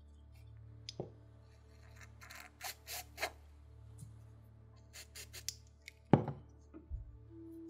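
Several short hisses from a Loctite aerosol penetrating spray, sprayed onto a rusted lighter in two groups of bursts, then a sharp knock near the end.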